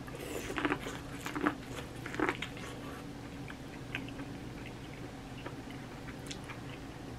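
Teeth biting kernels off a sauced cob of corn: three louder crunching bites in the first two and a half seconds, then quieter chewing with scattered small clicks.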